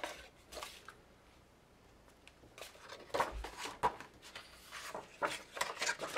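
Sheets of patterned paper rustling and sliding, with a few short plastic clicks from a Martha Stewart butterfly craft punch as it is pressed and moved along the paper. There is a near-quiet pause of about a second and a half, starting about a second in.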